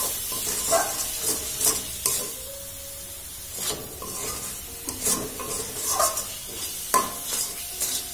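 Metal spatula scraping and knocking against a metal kadai as thick carrot halwa is stirred, with a light sizzle from the frying mixture. The strokes come irregularly, about one or two a second, with a short lull near the middle.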